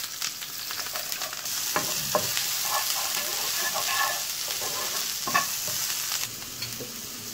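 Freshly chopped onions sizzling in hot oil in a non-stick frying pan, stirred with a wooden spatula that scrapes and knocks against the pan a few times. The sizzle eases a little about six seconds in.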